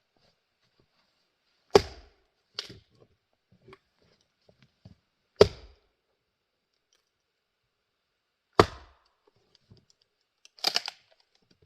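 Axe strikes splitting grand fir: three sharp chops about three seconds apart, with lighter knocks of wood between them and a quick run of knocks near the end.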